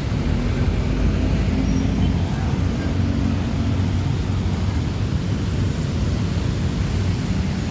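Steady low rumble of road traffic and running vehicle engines, with a faint engine hum.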